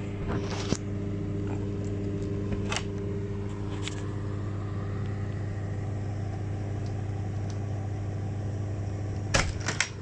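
100-litre air compressor running inside a wooden soundproofing box lined with damping material: a steady hum. A few short knocks, with a cluster near the end.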